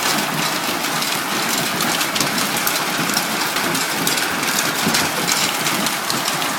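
Hail and heavy rain falling in a thunderstorm: a loud, steady hiss made of countless small hits.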